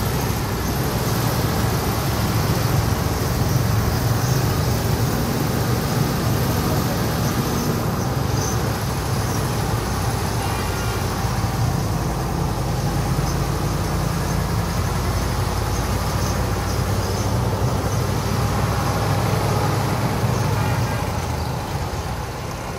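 Mercedes-Benz 2635 truck's diesel engine running steadily while it pulls a loaded semi-trailer, a low, even rumble that eases slightly near the end.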